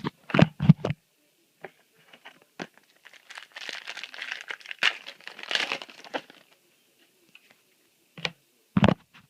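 A foil trading-card booster pack being torn open and crinkled for a few seconds, with a few short knocks from handling before and after.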